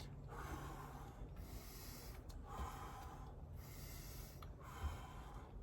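A man breathing steadily during exercise, in through the nose and out through the mouth, a full breath about every two seconds.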